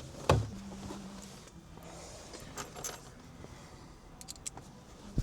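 Light metallic clinks and rattles of hand tools, a ratchet with a 7mm socket being handled and set on dash bracket bolts, with a thump shortly after the start and short runs of sharp clicks later on.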